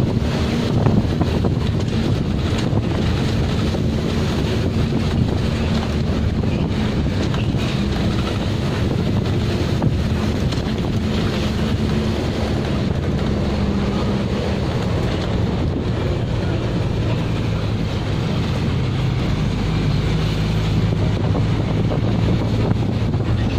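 Road vehicle's engine running steadily at speed, with wind buffeting the microphone. The engine's hum drops somewhat lower near the end.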